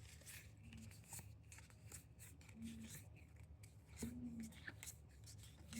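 Faint rustling and soft clicks of a Pokémon trading-card booster pack being opened and its cards handled, with a few short, soft low hums.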